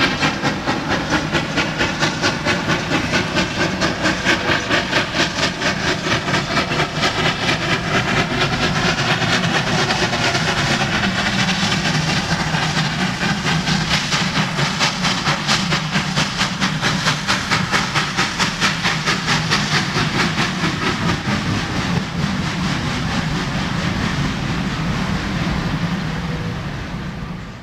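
South African Railways class GEA Garratt steam locomotive working hard uphill with a train of wagons, a fast steady chuff of exhaust beats over the rumble of the train. The sound fades away near the end.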